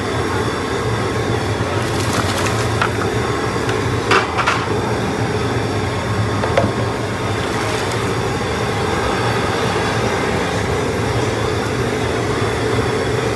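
Propane burner under a large stainless steel crawfish boiler running with a steady rushing noise while the seasoned water churns at a rolling boil. A few short knocks come about two and four seconds in.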